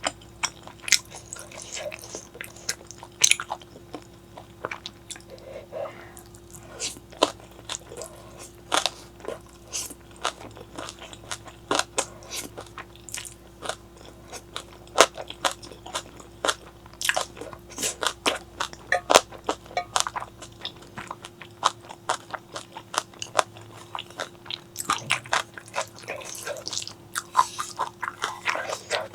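Close-miked eating: a person biting and chewing crunchy food, with many crisp, irregular crunches and wet mouth clicks. A faint steady hum runs underneath.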